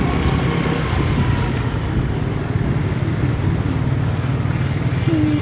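Large diesel coach engine running with a steady low rumble. Near the end a melodic horn starts, holding steady notes that step between a few pitches, the bus's basuri 'telolet' horn.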